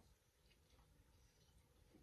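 Near silence: quiet room tone with a few faint, short ticks.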